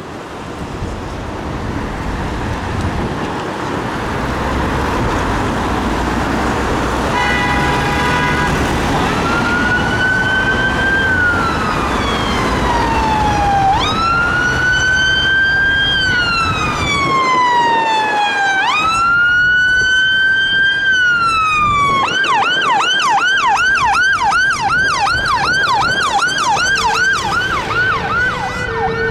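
Fire engine sirens on a turnout. Engine and road noise comes first, then a brief steady horn note. A slow wail follows that rises and falls about every five seconds, switching about two-thirds of the way through to a fast yelp of about three sweeps a second.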